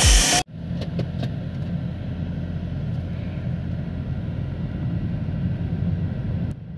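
Low, steady road and tyre rumble inside the cabin of a moving third-generation Toyota Prius, with a few light clicks about a second in. Music plays briefly at the very start, cuts off abruptly, and comes back near the end.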